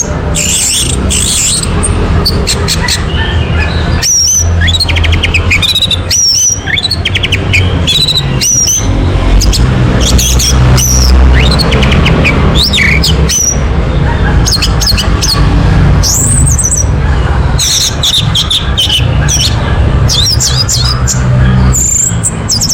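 Orange-headed thrush (anis merah) singing continuously: a fast, varied run of short whistled phrases, pitch glides and rapid trills, over a steady low hum.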